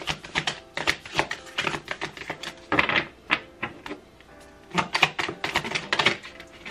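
Tarot cards being shuffled by hand: quick, irregular flicking and clicking of the cards against each other, in a few louder bursts.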